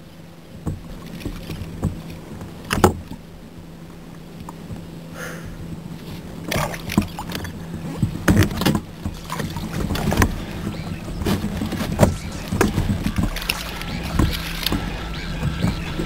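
Handling noises aboard a plastic fishing kayak: irregular knocks, clicks and rattles as a freshly caught fish and the fishing tackle are handled close to the microphone, more frequent in the second half.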